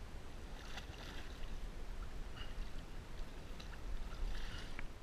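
Water lapping and sloshing around a kayak, with a steady low rumble on the microphone and a few small ticks. About four seconds in there is a brief rise of splashing where a nurse shark breaks the surface close by.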